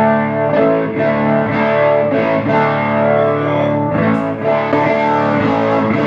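Electric guitar played through a Leslie 147 rotating-speaker cabinet, sustained chords struck in a steady rhythm.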